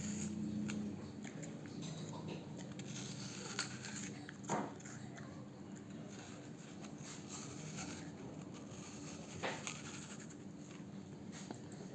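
Faint eating noises: a few soft, sharp clicks of chewing over a low steady hum.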